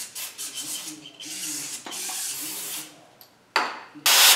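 Compressed air hissing in several bursts as it blows out a Stihl 041 chainsaw crankcase and its freshly seated crank bearing. The last two bursts, near the end, are short and much louder.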